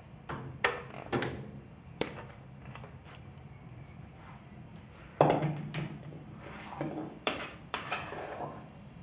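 Metal cooking pot knocking and scraping as thick corn pie mixture is emptied from it into a foil baking tin: a string of separate clicks and knocks, the loudest about five seconds in.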